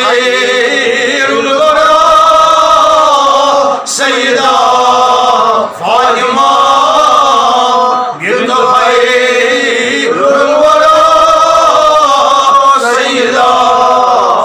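A man chanting a devotional Arabic-Urdu verse in long, drawn-out sung phrases, with short breath pauses between the phrases.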